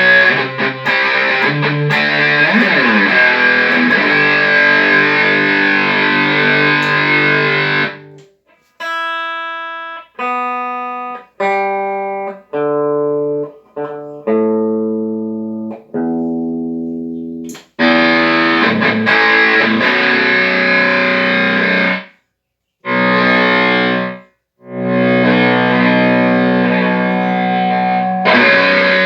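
Electric guitar played through a Line 6 HD500X multi-effects unit, working again after repair. It opens with dense distorted chords. These give way to a run of single chords, each rung out and stopped short about every second, before the heavy distorted playing returns with two brief breaks.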